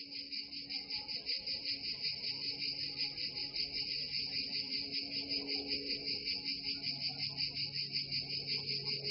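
Insects chirping in a fast, even, pulsing trill, typical of crickets, with faint low sustained notes underneath that change pitch a few times.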